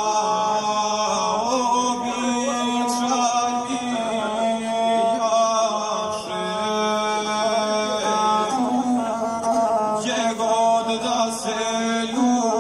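Gusle, the single-string bowed folk fiddle, played under a male voice singing in chant-like epic style, with a steady low tone holding beneath the shifting vocal line.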